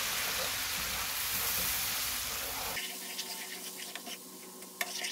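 Butter, minced garlic and white wine sizzling and bubbling in a frying pan as they are stirred with a spatula. About three seconds in the sizzle drops off abruptly to a fainter hiss, with a few light clicks near the end.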